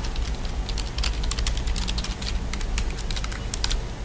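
Typing on a computer keyboard: a quick, irregular run of keystrokes entering code.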